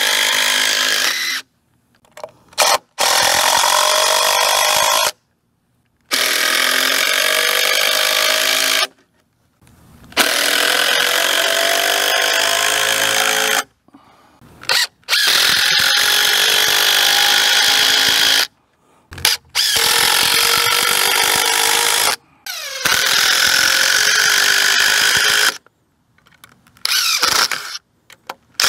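Cordless drill driving long screws into cedar timber: the motor runs loud and steady for a few seconds at a time, about eight times, with short pauses between screws and its pitch shifting as it loads and lets off.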